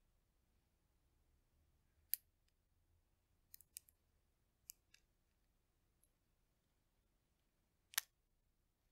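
Roasted chestnut shell cracking and snapping as fingers peel it: a handful of short, sharp cracks, one about two seconds in, a cluster a second or so later, and the loudest near the end, with near silence between.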